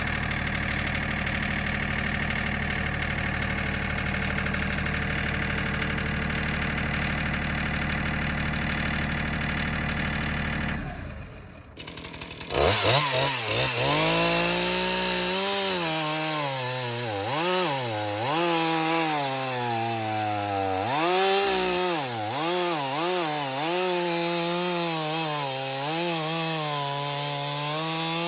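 An engine running steadily, then an abrupt change about eleven seconds in to a Stihl MS 311 two-stroke chainsaw cutting a log, its pitch dipping and rising over and over as it works through the wood.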